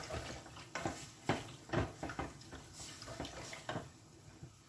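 A utensil stirring strips of pork belly in a frying pan, knocking and scraping against the pan several times before slowing near the end.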